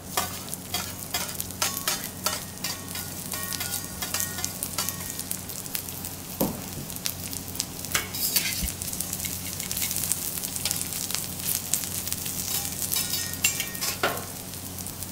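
Thinly sliced garlic sizzling in oil on a hot teppanyaki griddle: a steady frying hiss full of small crackling pops, over a faint low hum.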